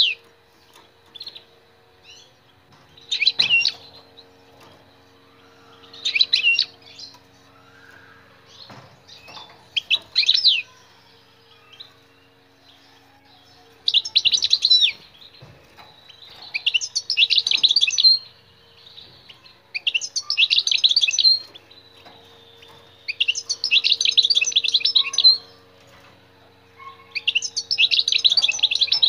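European goldfinch singing: a few short twittering phrases, then longer fast, jangling twittered phrases of one to two seconds, repeated every few seconds. A faint steady low hum lies underneath.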